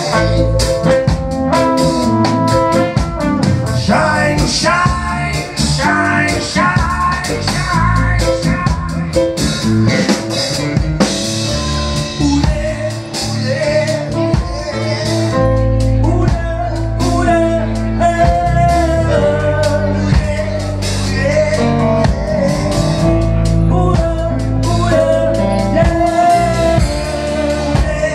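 Live band playing loudly, with electric guitars, bass guitar and drums, heard through a phone's microphone.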